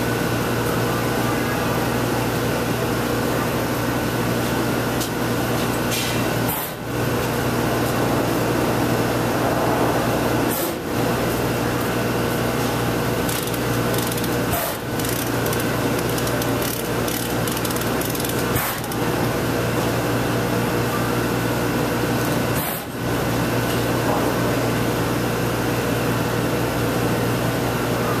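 Steady whir of an electric fan or blower, with a constant low hum under a wider rushing noise. It drops out briefly five times, about every four seconds.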